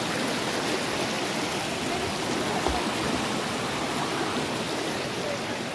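A small river flowing, a steady rush of water.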